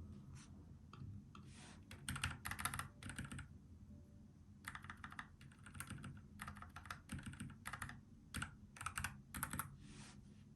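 NuPhy Air75 low-profile mechanical keyboard with brown tactile switches, typed on in quick runs of keystrokes broken by short pauses.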